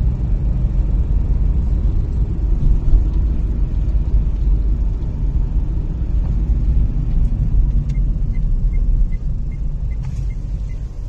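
Steady low rumble of a car driving along a town street, engine and tyre noise heard from inside the car. In the last few seconds faint regular ticks sound over it.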